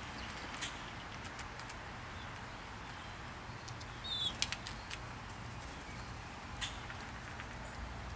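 Scattered light clicks and taps of in-shell peanuts being picked up and knocked about on pavement by feeding birds and an eastern chipmunk, over a low steady background hum. About four seconds in comes a cluster of louder clicks with a brief high chirp.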